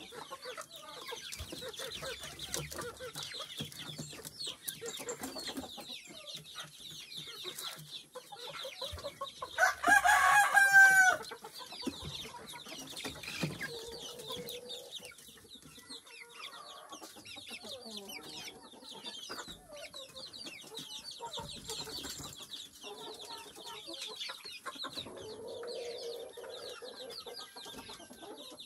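Chickens clucking in bamboo coops, with a rooster crowing once about ten seconds in, the loudest sound here. Dense high-pitched chirping runs underneath throughout.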